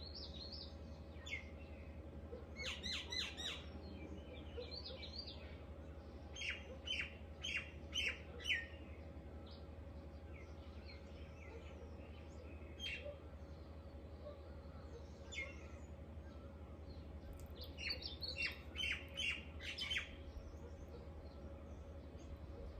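Birds calling in several separate runs of short, sharp chirps, each run a quick series of notes, over a faint steady hum.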